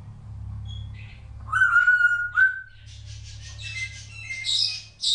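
African grey parrot whistling: a loud, held whistle about one and a half seconds in, then a run of chirps and higher squeaky calls, with other birds chirping in the background. A low steady hum runs underneath.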